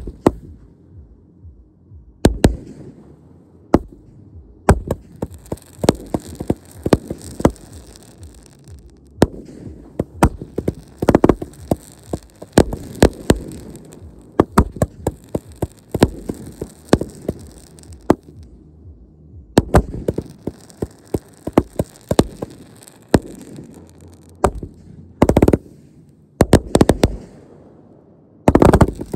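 Consumer fireworks going off: a rapid, irregular run of sharp bangs, several a second at times, over stretches of crackling, with a few short lulls between volleys.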